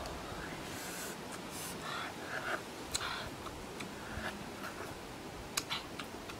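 A person biting and chewing juicy watermelon: short, wet crunching and smacking sounds, with a few sharp clicks.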